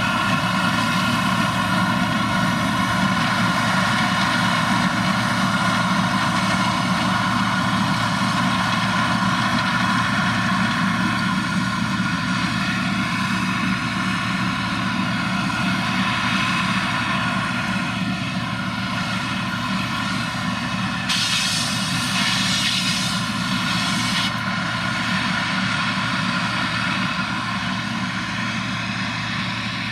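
Heavy diesel farm machinery running steadily under load, a dense engine drone with a rising-and-falling tone that fades slightly near the end. A brief hiss comes in for about three seconds past the middle.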